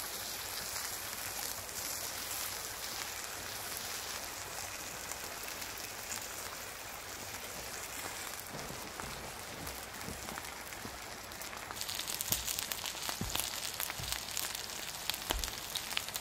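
Thick ribeye steak sizzling on a camp stove grill: a steady hiss that turns louder and crackly about twelve seconds in, with a few low knocks near the end.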